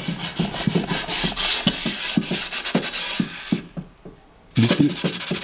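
A small pad rubbed back and forth over a wooden stool seat, a scratchy stroke-by-stroke rubbing. It pauses for about a second near the end, then resumes with quicker strokes.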